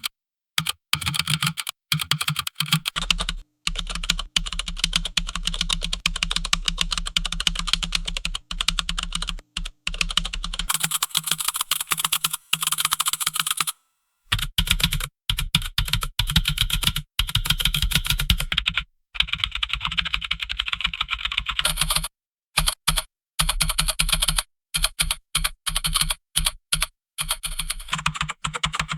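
Typing on a computer keyboard: fast runs of key clicks, broken by a few short pauses.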